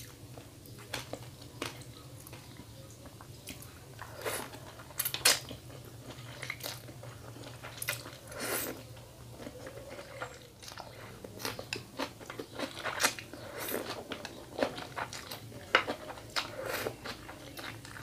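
A person eating thin rice noodles from pork noodle soup up close: slurping the noodles and chewing, with many irregular wet smacks and clicks, some louder than others.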